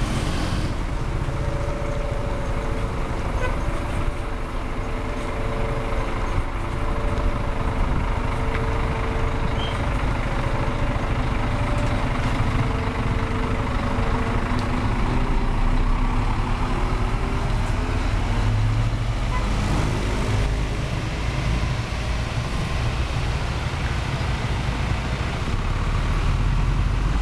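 Scania bus engine running as the coach passes close and pulls uphill. For roughly the first half, a multi-tone 'telolet' horn sounds a pattern of alternating notes. About two-thirds of the way through, the engine note rises briefly.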